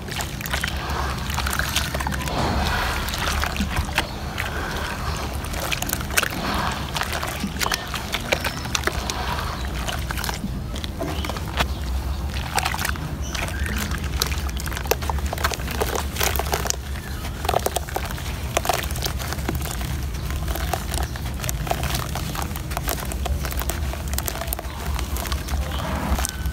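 Water sloshing and wet sandy mud squelching as hands knead, squeeze and break up a lump of it in a plastic basin of water, with many small sharp crackles and clicks. A steady low hum runs underneath.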